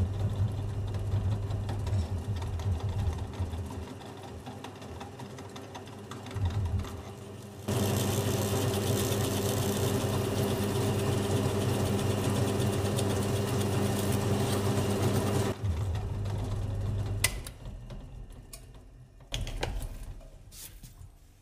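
Floor-standing pedestal drill press running with a Forstner bit, boring a hole through a soft pine board. For about eight seconds in the middle the bit cuts into the wood under load and the sound gets much louder, then it stops suddenly and the motor hums on. After a sharp click it goes quiet, and a single knock follows.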